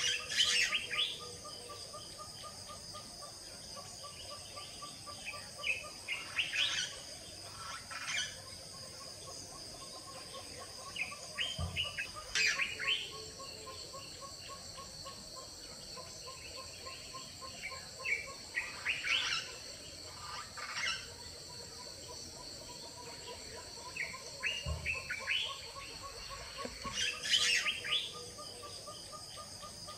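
Birds calling in short bursts every few seconds over a steady, high-pitched insect chorus and a lower, rapidly pulsing trill.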